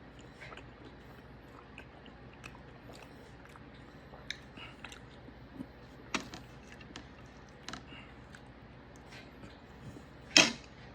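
Close-up chewing of steak: small, irregular mouth clicks and smacks over a low hum, with one much louder sharp clack near the end.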